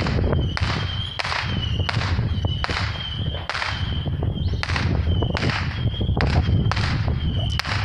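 Many fireworks going off around at once: a rapid string of sharp cracks and bangs, about two to three a second, over a continuous low rumble.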